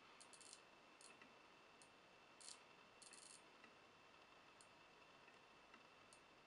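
Faint clicks of a computer pointer button, some single and some in quick runs of three or four, as the on-screen plus button is pressed repeatedly to step up a servo centre value, over a low hiss.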